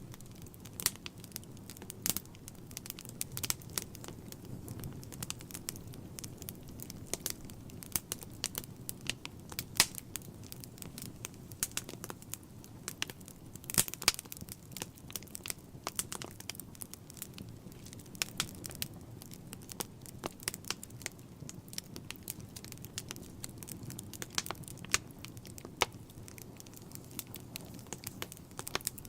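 Wood fire burning in a fireplace, crackling with frequent irregular snaps and pops, a few of them louder, over a steady low rumble.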